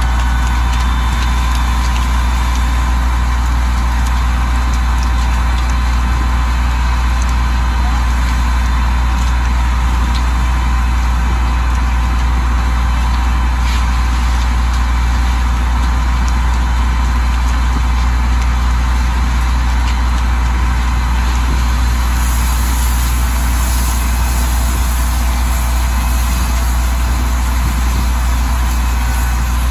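Fire engine idling steadily at a fire scene, a constant deep engine hum with an even hiss over it.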